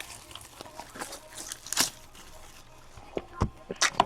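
Packaging of a hockey card box rustling and tearing in short bursts as it is opened, with a louder tear a little under two seconds in and a few sharp clicks near the end.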